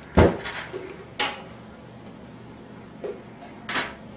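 Tableware being handled: about four short, sharp clinks and knocks of dishes and cutlery, the first the loudest.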